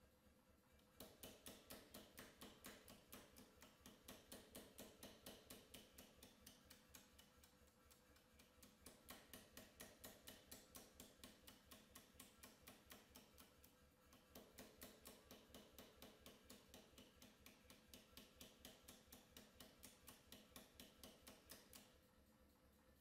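Anyang pneumatic power hammer striking a hot steel knife blade through a hand-held top tool: a fast, even run of blows, about four a second, recorded faintly. The blows ease off briefly twice before stopping near the end.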